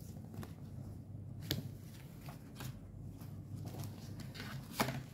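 Paper postcards and a paperback manga volume being handled and shuffled: soft paper rustling with a few light flicks and taps, the sharpest a single tap near the end.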